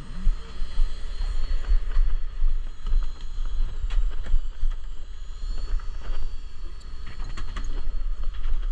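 Wind buffeting the microphone in gusts over the steady mechanical hum of a fishing boat's engine, with a few light knocks.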